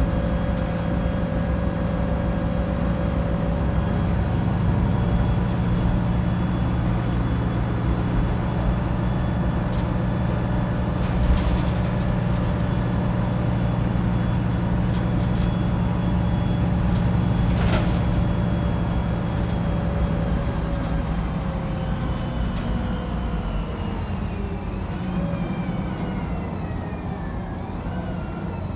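Wright Pulsar 2 single-deck bus heard from on board: engine and drivetrain running steadily under way, with a few sharp rattles and knocks in the middle. In the last third the engine and transmission whine fall in pitch as the bus slows.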